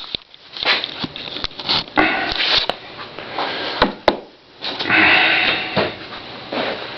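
Workshop handling noises: sharp clicks and knocks of wooden pieces and saw fittings being moved about, with two longer brushing or rustling passes. No saw is running.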